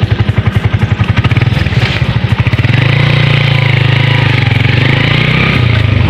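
Motorcycle engine idling with an even pulsing beat, then from about three seconds in running at steadier, higher revs with a rushing noise over it.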